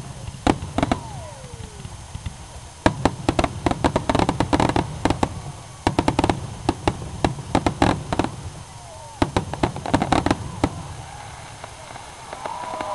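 Fireworks display: bursting aerial shells and dense strings of crackling pops, coming in clusters of a second or two with quieter gaps between.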